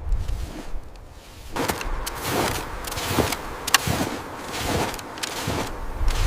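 Footsteps crunching in snow: a run of repeated noisy steps, roughly one every half second to second, starting after a quieter first second and a half.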